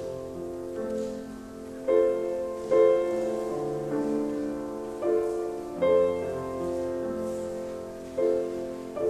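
Grand piano playing a slow introduction: chords struck about every one to two seconds and left to ring out.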